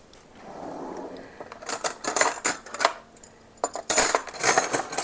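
Metal cutlery clinking and clattering as someone rummages through silverware, a soft rustle first and then a quick run of sharp clinks from about two seconds in.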